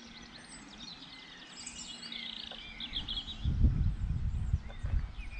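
Birds singing outdoors, with quick chirps and a short trill. From about three seconds in, wind buffets the microphone in low, irregular rumbling gusts that drown out the rest.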